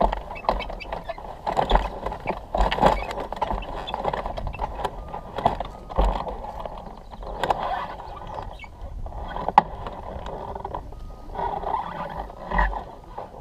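Wind buffeting on a camera mounted on a Wills Wing U2 hang glider, with irregular knocks and rattles from the glider's frame as it is walked to launch, and a sharp click about ten seconds in.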